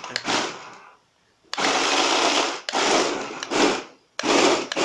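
Electric motors of a Flytec amphibious RC stunt car whirring as its spiral screw drums spin against a wooden floor, in bursts of throttle: a short burst at the start, about a second of quiet, then several longer runs with brief breaks.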